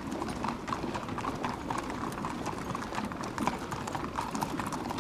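Horses' hooves clip-clopping: a dense, irregular run of hoof clicks, several a second.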